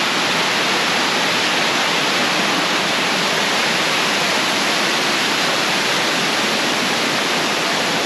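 Waterfall and water cascading down stone steps, a steady, even rushing of falling water.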